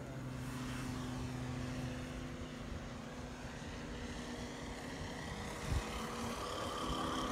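Propeller engines of radio-controlled model warplanes droning steadily in flight, several engine tones heard at once, with a brief thump partway through.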